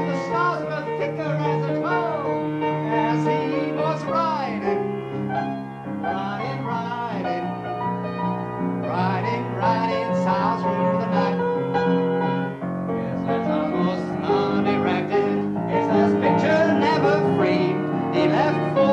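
Piano music: sustained piano chords with a bending, wavering melody line over them, growing a little louder in the last third.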